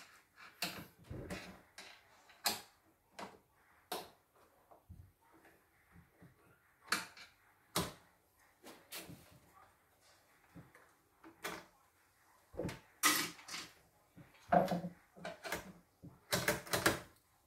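Irregular clicks, knocks and clatters of hands and a screwdriver working on the opened-up CNY E960 embroidery machine's plastic and metal parts, with the loudest clatter about thirteen seconds in and again near the end.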